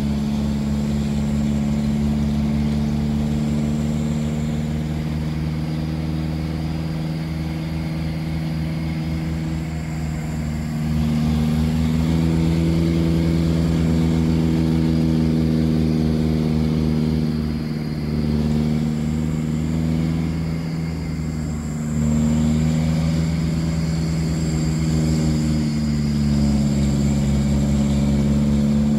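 Truck engine heard from inside the cab, running steadily under load on a mountain climb. Its note rises and falls a few times and gets louder about eleven seconds in and again about twenty-two seconds in.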